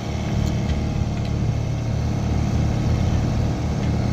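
Sailboat's engine running steadily under way, a low, even drone.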